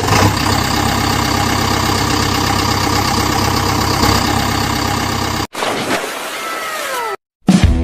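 Steady engine idling sound with an even, unchanging pitch that cuts off abruptly about five and a half seconds in. A short sound with several falling tones follows, then music starts near the end.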